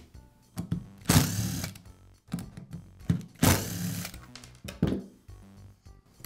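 Cordless drill-driver running in two short bursts, about a second each, backing screws out of a Dremel Multi-Max oscillating tool's plastic housing, with light clicks of handling between.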